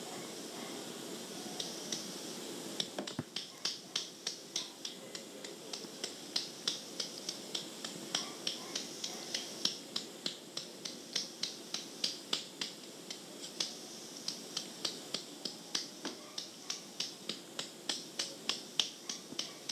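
A long run of sharp, fairly regular clicks, about three a second, beginning about three seconds in, over the steady hiss of an old cassette recording played back through earbuds.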